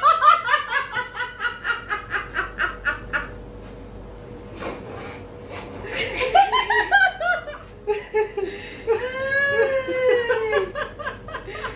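A man and a woman laughing hard: a fast run of laughter that dies away about three seconds in, then laughter picking up again about six seconds in, rising to long, high-pitched laughs near the end.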